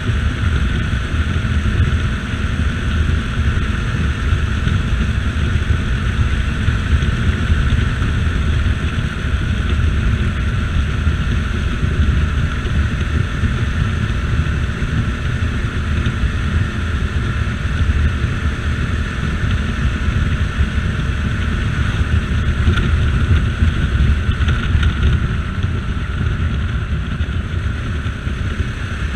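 CSC RX4 motorcycle cruising at a steady road speed, its engine running with an even hum, under heavy wind buffeting on the microphone.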